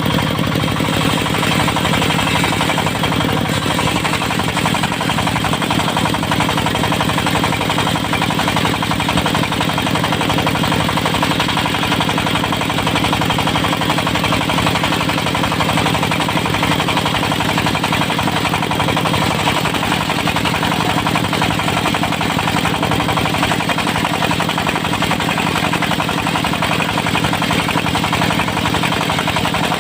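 Diesel engine of a portable circular-saw mill running steadily at an even pace, with a rapid regular pulse and a constant pitch.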